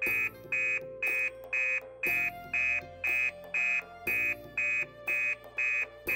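Electronic beeping, short even beeps about twice a second, over quieter background music.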